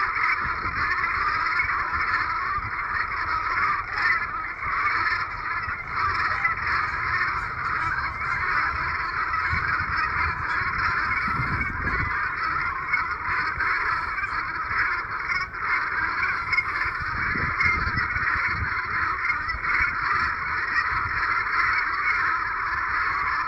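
A flock of geese honking, many calls overlapping into a continuous, steady chorus.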